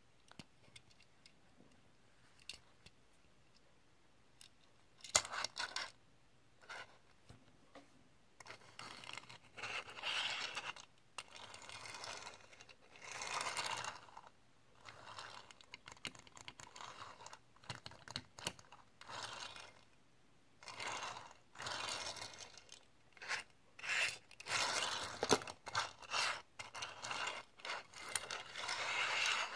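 Die-cast Tomica Lamborghini Aventador toy car pushed back and forth across a tabletop, its small wheels rolling with a rasping scrape in repeated swells of about a second each, mixed with sharp clicks and taps from handling. The first few seconds hold only a few faint ticks.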